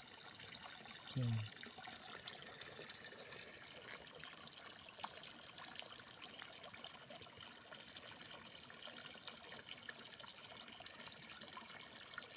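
Faint, steady trickling water with scattered small ticks, and a brief low voice sound about a second in.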